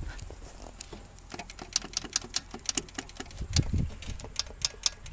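A quick, uneven series of sharp clicks or ticks, about four to six a second, with a couple of dull low thumps about halfway through.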